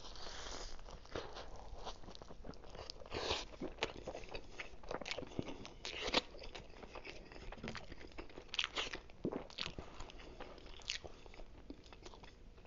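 A person biting into and chewing a Philly cheesesteak sandwich, with irregular soft, wet mouth clicks and smacks. A bite comes at the start, and a finger is sucked clean about six seconds in.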